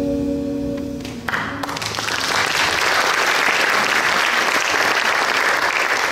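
A jazz band's final held chord sounding until about a second in, when it stops and the audience breaks into applause that carries on steadily to the end.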